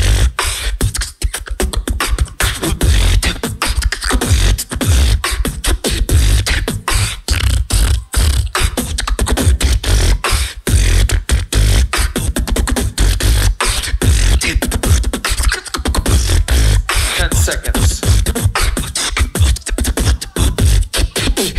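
Solo beatboxer performing through a PA, a fast run of vocal kick drums, snares and hi-hats with heavy amplified bass and almost no gaps.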